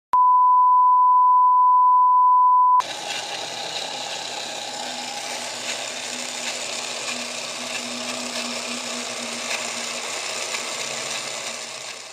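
A loud, steady 1 kHz test tone for about three seconds, which cuts off abruptly. It gives way to a quieter, steady whirring noise that runs until it stops just before the end.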